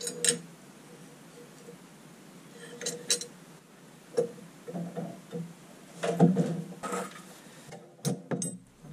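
Steel tools and fixture parts being handled on a milling machine table: a string of separate metallic clinks and knocks as a square and a sine-plate fixture are set and clamped in place.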